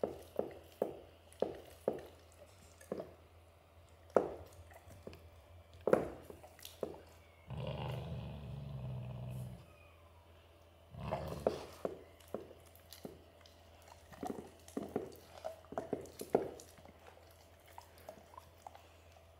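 Dog gnawing and crunching on a raw meaty bone against a tile floor, a run of irregular sharp cracks and clicks. Near the middle a low growl holds for about two seconds, with a shorter one soon after.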